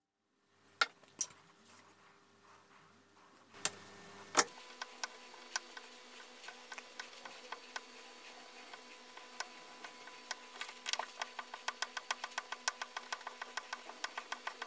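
A steel gouge being honed on a leather strop charged with green polishing compound. After a few scattered knocks, a run of light clicks and taps from the strokes sets in about four seconds in and quickens to about three or four a second near the end, over a faint steady hum.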